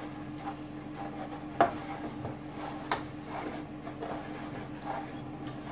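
Pastry brush rubbing butter over a metal baking tin, a soft scraping with two sharp clicks against the tin, about a second and a half and three seconds in.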